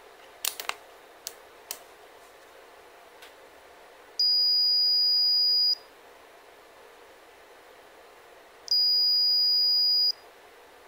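UNI-T UT33C multimeter's continuity buzzer sounding twice, each a steady high beep about a second and a half long, as the probes make contact across the drill's stator winding: the winding is continuous. A few light clicks in the first two seconds.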